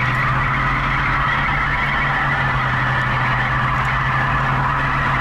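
Boattail Buick Riviera's 455 V8 held steadily at high revs as the rear tires spin on the pavement in a smoky donut, a constant engine drone with tire noise on top.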